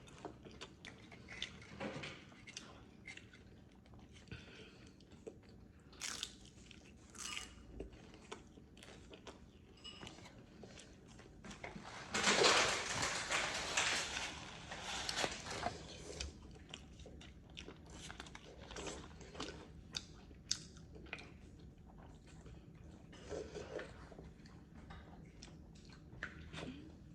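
Close-up mouth sounds of someone biting and chewing a crunchy fried egg roll: scattered crisp crackles throughout, with a denser stretch of loud crunching about halfway through.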